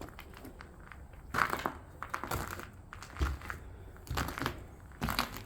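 Footsteps crunching over debris on a floor, about half a dozen steps at an uneven walking pace.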